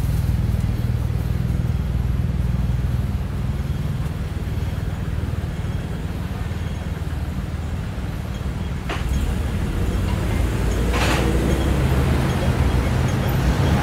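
Street traffic: a steady low engine rumble from nearby vehicles, with a sharp click about nine seconds in and a short hiss about two seconds later.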